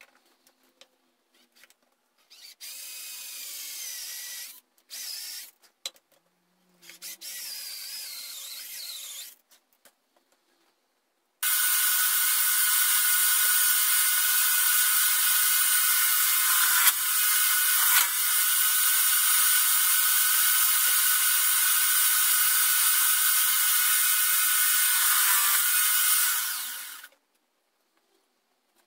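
A small electric power tool's motor runs steadily at one speed for about fifteen seconds, starting abruptly about eleven seconds in and winding down near the end. Before it come three shorter, quieter bursts of sound with a wavering pitch.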